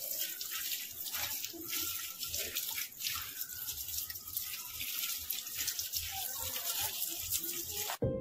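Stream of water splashing onto a wire birdcage and the parrot inside as the bird is washed, a steady running-water hiss that cuts off abruptly near the end.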